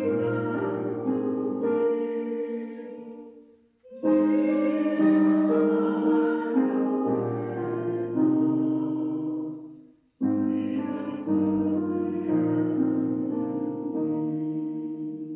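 Choir singing a carol in three long phrases of held chords, each ending in a brief pause, about four seconds in, about ten seconds in and just after the end.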